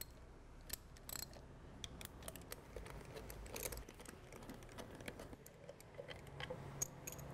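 Faint, scattered clicks and ticks of a small hand driver and metal screws as the screws of the hub motor's encoder cover are undone and lifted out.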